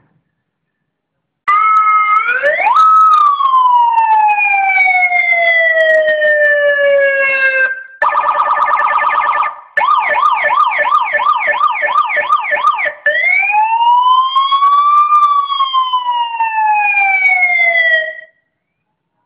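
Seven-tone electronic car siren (ZH2015) played through a large horn loudspeaker, stepping through its tones. It starts about a second and a half in with a rise and a long slow falling wail, then a fast warble, then a rapid yelp of about three upward sweeps a second, then another slow rise and fall. It stops near the end.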